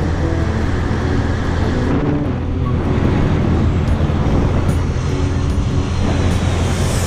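Motorbike engine running at a steady cruising speed, with wind and road noise rushing over the onboard microphone.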